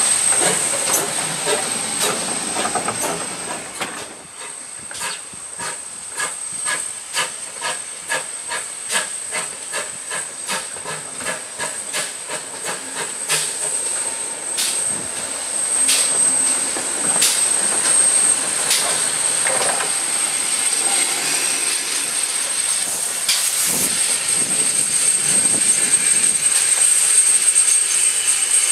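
GWR 5700 class pannier tank steam locomotive working slowly with its goods wagons and brake van: a steady steam hiss, with a regular beat of about two strokes a second through the middle. The sound grows louder near the end as the engine passes close.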